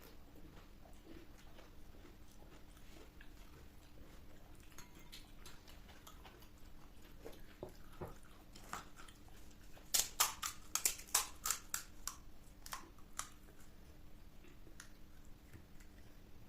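Crisp panipuri shells crunching as they are bitten and chewed, with a quick run of loud crunches about ten seconds in and softer scattered chewing clicks around it.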